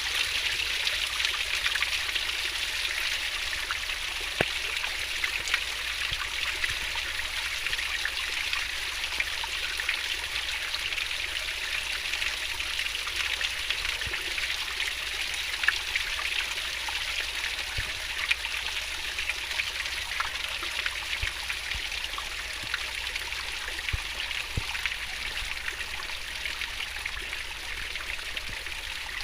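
Stream water flowing fast and babbling over rocks, a steady splashing rush.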